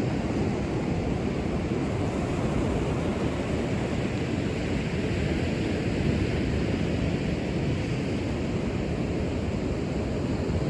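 Sea surf breaking on a sandy beach, a steady wash of noise with no separate crashes standing out, mixed with wind rumbling on the microphone.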